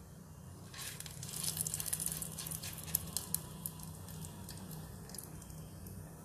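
Whole spices (bay leaf, nigella, fennel and fenugreek seeds, cloves, cardamom) sizzling and crackling in hot ghee for a tempering. The crackle swells about a second in and is busiest in the middle, with scattered sharp pops.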